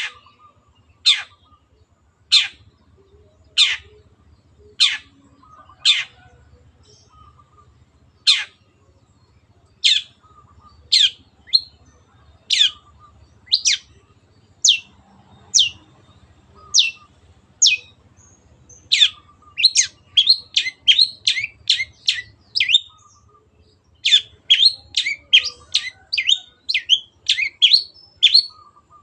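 Long-tailed shrike (Lanius schach) giving sharp, high calls that sweep downward, one about every second at first. About two-thirds of the way in they speed up into fast runs of several calls a second.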